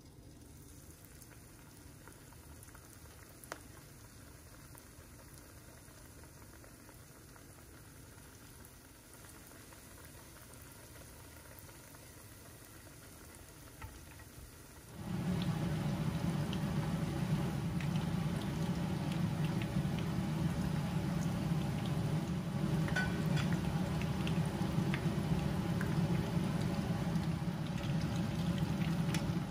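Breaded shrimp deep-frying in hot oil in a pan. It is faint at first, then about halfway in it jumps suddenly to a loud, steady sizzle with many crackling pops.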